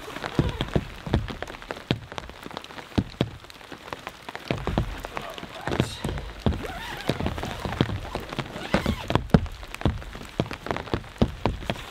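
Light rain falling, with many irregular, sharp raindrop taps close by. About halfway through, nylon tent fabric rustles as the rain fly and door of a backpacking tent are pulled open.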